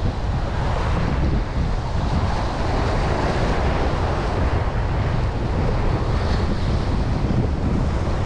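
Wind buffeting the microphone in a steady low rumble, with the wash of waves underneath.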